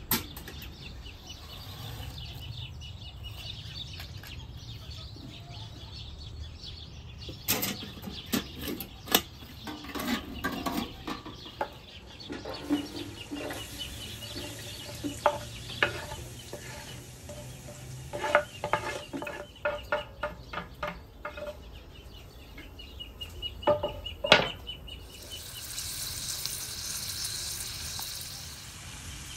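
Sliced onions frying in hot oil in a metal pan and being stirred, with a utensil clicking and scraping against the pan in irregular runs. A steady sizzle comes up near the end. There is a sharp click at the very start.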